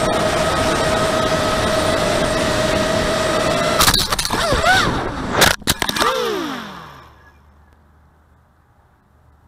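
250-size FPV racing quadcopter's motors and propellers whining steadily, then crashing into a tree about four seconds in. Several sharp cracks of the propellers striking branches follow, with the motor pitch wobbling. The motors then wind down in a falling whine and fall quiet about seven seconds in.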